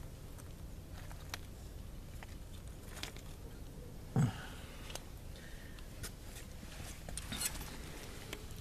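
Low steady background hum with scattered faint clicks and rustles, a short louder low thump about four seconds in, and a brief cluster of clicks near the end.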